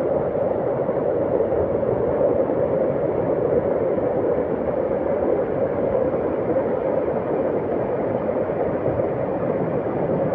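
Floodwater rushing in a steady, unbroken churning noise.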